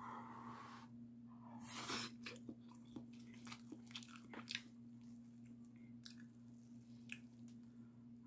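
Mouth sounds of a person eating Paldo Bibimmyeon, cold spicy mixed noodles: chewing with many small wet clicks, and a short noisy burst about two seconds in. A steady low hum runs underneath.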